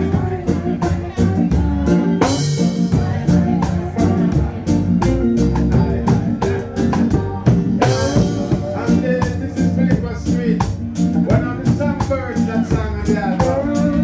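Live reggae band playing: a heavy bass line under a steady beat of drum strikes about three a second, with a crash about two seconds in and another near the middle. A voice sings over the band in the second half.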